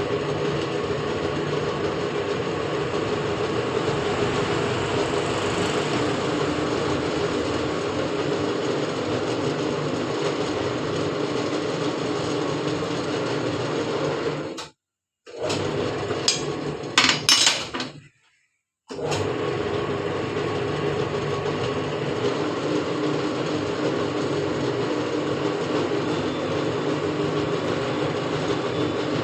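A steady running machine, a motor or power tool, with an even hum. The noise cuts out abruptly twice near the middle, and a few sharp knocks sound between the two gaps.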